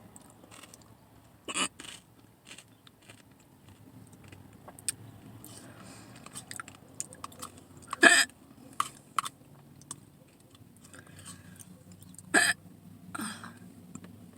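A few sharp, abrupt hiccups, the loudest about eight seconds in, some ending in a short voiced catch. Quieter chewing and small clicks fall between them.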